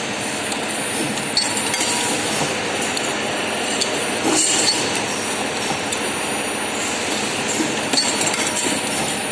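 Steady rushing, rumbling noise with scattered sharp clinks and clicks.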